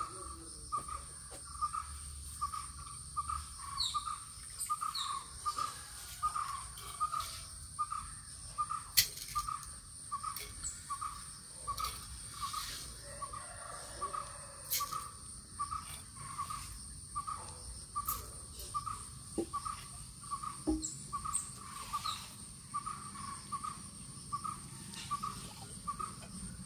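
A bird repeating one short, clipped note at a steady, metronome-like pace of a little under two a second, without a break. An insect keeps up a steady high-pitched whine behind it, with a few faint clicks.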